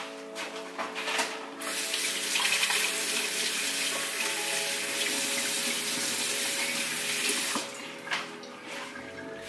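Water running from a tap for about six seconds, starting and stopping abruptly, with background music underneath.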